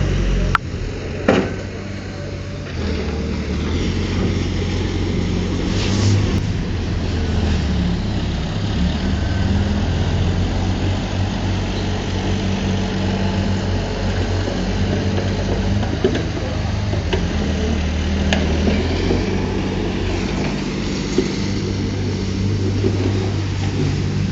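Diesel engine of a heavy earthmoving machine running steadily, its note rising and falling with load, with a few sharp clanks.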